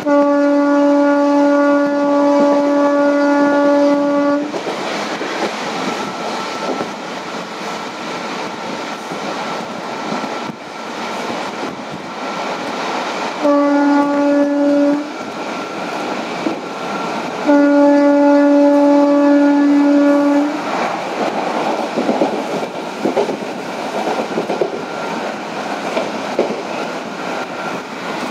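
WAP4 electric locomotive's horn sounding three times, a long blast of about four seconds, a short blast and a medium one, all on one pitch. Between and after the blasts, the train's coaches rumble and clatter over the rail joints at speed.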